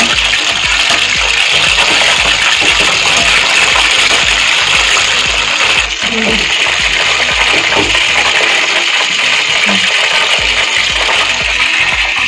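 Battered chicken lollipops deep-frying in hot oil, a loud, steady sizzle.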